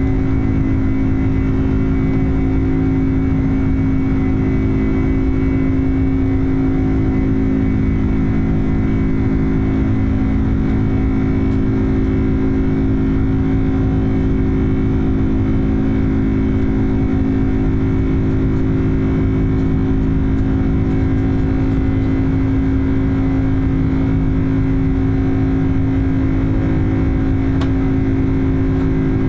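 Jet airliner cabin noise during the climb after takeoff: the engines' steady drone, with a strong low hum and a fainter high whine over a rushing noise.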